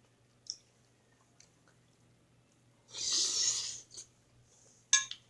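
Eating sounds in a quiet room: a few soft mouth clicks from chewing and a short breathy hiss about three seconds in, with a sharper click near the end.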